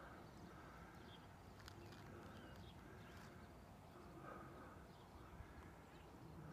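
Faint outdoor ambience with distant birds calling: short high chirps over a lower call that repeats over and over.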